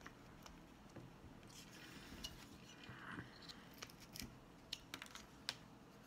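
Carving knife cutting into a small wooden block: faint scattered clicks and short scrapes as the blade slices off shavings, more of them in the second half.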